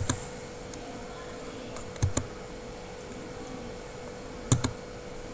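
Three pairs of sharp clicks about two seconds apart, a computer key pressed and released each time, over a faint steady electrical hum.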